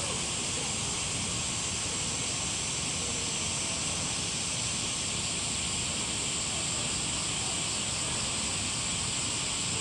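Steady, even hiss with a strong high-pitched band, unchanging throughout, with no distinct events.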